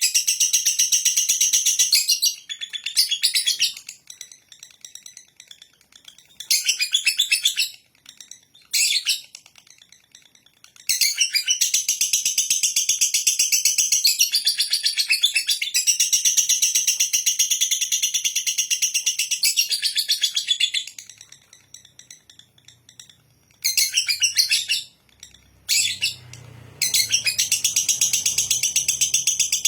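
Lovebird singing its 'ngekek', a rapid, high-pitched chattering trill. It comes in bouts separated by short pauses, the longest running unbroken for about nine seconds in the middle.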